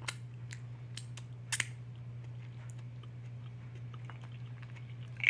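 Close-up eating sounds from a seafood boil: chewing with a few short sharp clicks and crunches, the loudest about a second and a half in, over a steady low hum.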